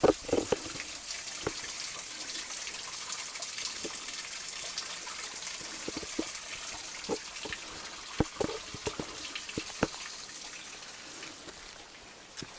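Small woodland brook running and trickling over rocks, a steady hiss of water that grows fainter near the end. A few light clicks and knocks over it, the sharpest at the very start.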